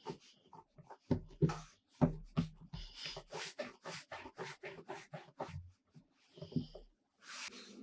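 Hands rolling and pressing a log of soft bread dough on a work mat: an uneven run of soft pats, light thuds and rubbing of skin on dough.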